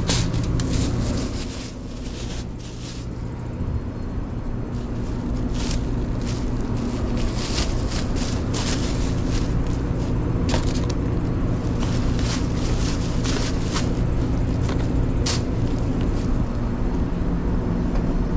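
Thin plastic carry-out bag and foil rustling and crinkling in quick, irregular bursts as a takeout order is bagged, over a steady low hum.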